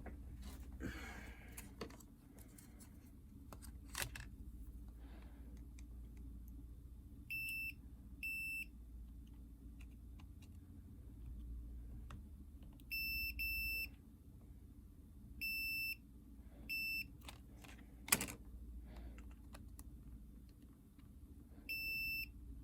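Continuity beeper of a multimeter giving about seven short beeps of one steady high tone, in pairs and singly, as the probes are touched across the fuses of a Nintendo DS Lite board. A beep means the fuse under test conducts. Light clicks of the probes are heard between beeps.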